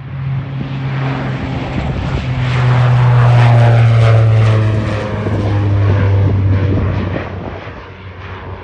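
Saab 2000's twin Rolls-Royce AE2100A turboprops with six-blade propellers at takeoff power as the airliner climbs out past: a loud propeller drone whose low hum slides down in pitch as it goes by. It is loudest three to four seconds in, then fades.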